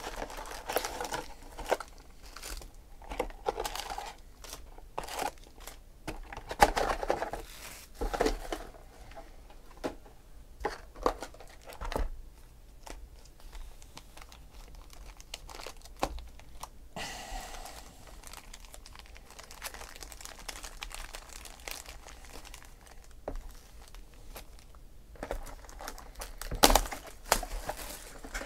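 Trading-card hobby boxes and foil packs being handled and opened by hand: irregular crinkling, scratching and crackling of cardboard and foil wrappers. It is quieter for a while past the middle, then a loud cluster of crinkles comes near the end.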